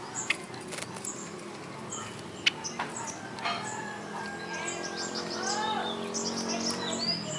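Small birds chirping over and over in short high notes, with a few sharp clicks in the first few seconds.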